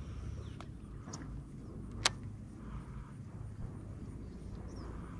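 A cast with a baitcasting rod and reel: two light clicks, then one sharp click about two seconds in, over a steady low rumble.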